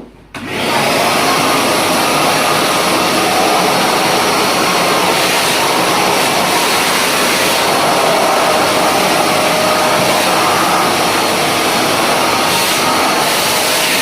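Kärcher WD 5 wet and dry vacuum cleaner switched on, its motor spinning up within about half a second, then running steadily with a loud rushing suction noise.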